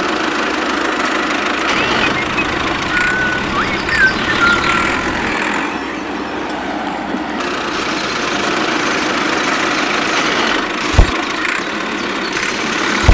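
DIY toy mini tractor running steadily as it drives its cone drill attachment across sand, a continuous mechanical motor sound. Two sharp thumps come near the end, about two seconds apart.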